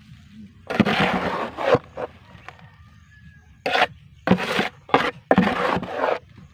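Several short bursts of scraping and rustling, like soil and dry grass being handled: one about a second in, then a quick series of four more in the second half.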